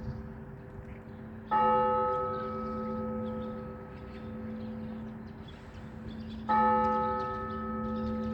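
A large Russian Orthodox church bell tolling for a service, struck twice about five seconds apart. Each strike rings on and hums into the next.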